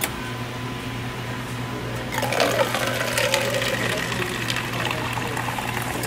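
Coffee machine running with a steady low hum; about two seconds in, hot coffee starts streaming from the spout and splashing into a paper cup.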